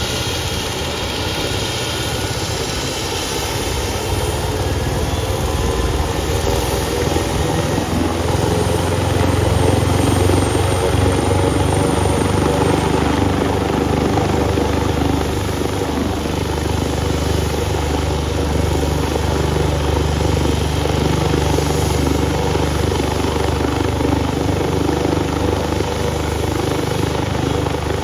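Medical helicopter running, with a steady rotor and turbine noise that grows louder about four seconds in.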